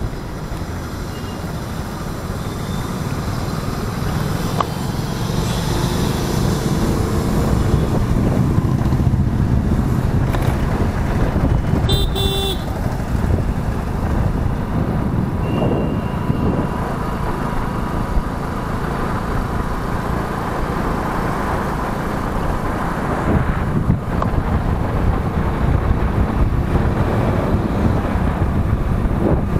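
Motorcycle riding through city traffic: steady engine and road noise with surrounding traffic. A vehicle horn honks briefly about twelve seconds in.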